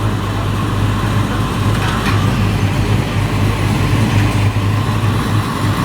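Engine running steadily with a low, even drone.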